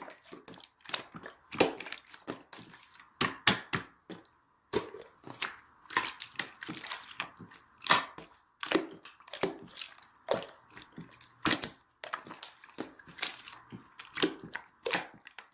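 Clear slime being squished and pressed by hand, giving irregular sharp wet pops and clicks, two or three a second, with a brief pause a little after four seconds in.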